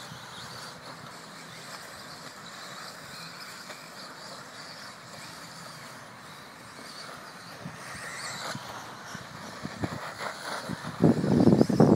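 Brushless electric 2wd RC buggies running on a dirt track: a steady hiss of motors and tyres on dirt. As one buggy comes close, the noise grows, and near the end a loud rough rushing noise takes over for about a second.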